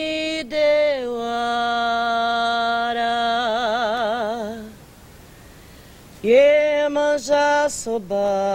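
A woman singing alone, unaccompanied: a long held phrase that steps down in pitch about a second in and ends in a wide vibrato. After a pause of about a second and a half, a second phrase begins and ends the same way.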